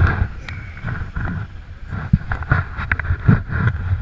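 Gusty wind buffeting the microphone, with surf breaking on the rocks and a scatter of sharp knocks and scuffs.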